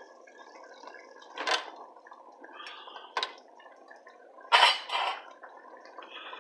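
Metal slotted spoon clinking and scraping against a stainless steel pot as cooked fusilli is tipped into a tomato and minced chicken sauce and stirred in: about four sharp clinks, the loudest a little past the middle, over a soft steady hiss.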